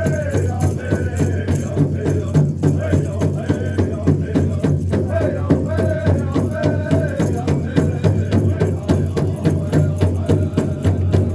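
Powwow drum group playing a steady, even drumbeat, with singers chanting in high voices over it: hoop dance song.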